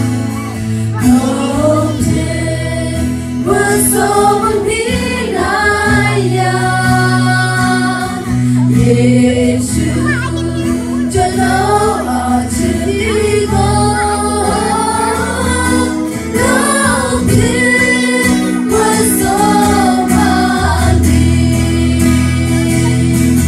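A worship group of women's and a man's voices singing a hymn together through microphones and a PA, over an instrumental accompaniment of long-held bass notes.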